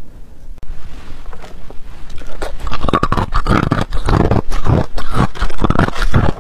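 Hard ice chunks being bitten and crunched between the teeth close to the microphone: rapid, loud crunching, several crunches a second, which builds up about a second in.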